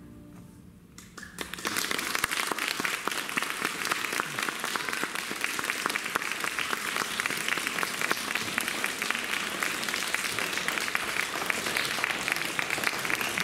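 The last notes of a grand piano fade out, then an audience breaks into applause about a second and a half in, with steady, dense clapping that carries on.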